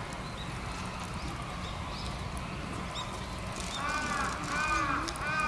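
An animal calling: about four seconds in, a run of short, hoarse, arching calls begins, about three of them roughly 0.7 s apart, over a steady background hiss.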